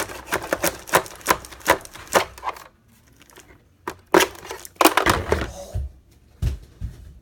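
Knife cutting through plastic and cardboard toy packaging: a quick run of sharp clicks and crackles, then a scraping burst and a few dull thumps as the package is handled.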